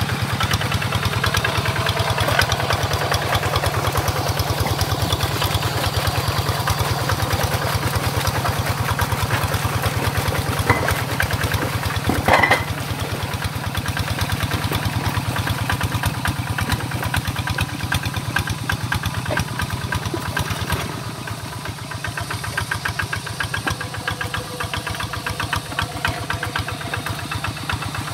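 Single-cylinder diesel engine of a two-wheel walking tractor running steadily with a rapid, even chug while its cage wheels work a flooded rice paddy. A short, louder sound stands out about twelve seconds in.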